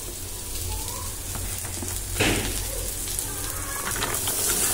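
Onion, green chilli and garlic sizzling in hot oil in a frying pan, with a single knock a little over two seconds in. Near the end, chopped carrots are tipped into the pan.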